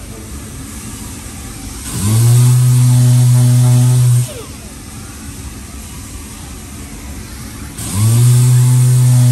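Random orbital sander triggered in two short runs, each spinning up with a rising whine and then running steadily for about two seconds, the first starting about two seconds in and the second near the end.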